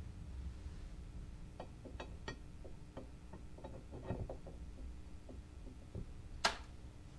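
Light metal clicks and taps from parts of a vintage meat grinder being handled, with one sharper click about six and a half seconds in.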